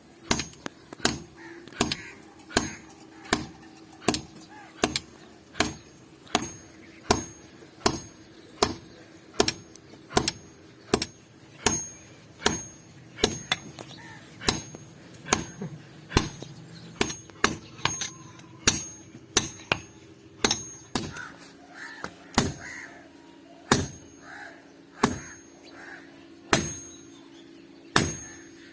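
Hand hammer striking hot iron on an anvil in a steady rhythm, about one to two blows a second, each with a bright metallic ring, while a cleaver blank is forged. A steady low hum runs underneath.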